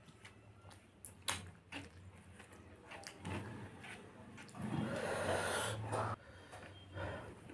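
Eating by hand from a metal tray: fingers scraping and tapping as they gather rice, with a sharp knock about a second in. About five seconds in comes a louder stretch of wet mouth noises as a handful of rice and chicken is pushed into the mouth, cutting off suddenly.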